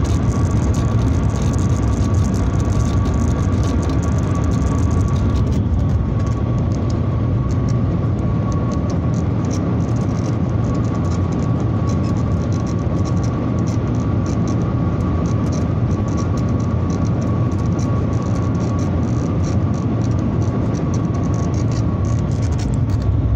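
Shanghai Maglev train at about 430 km/h, heard inside the passenger cabin: a steady rushing noise with a steady high tone running through it.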